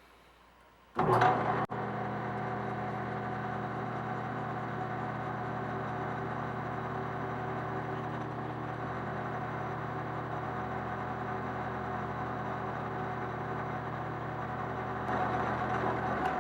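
Metal lathe starting up about a second in and running steadily in back gear, a humming motor-and-gear drone, as the knurling tool is pressed into the turning stock; it grows a little louder near the end.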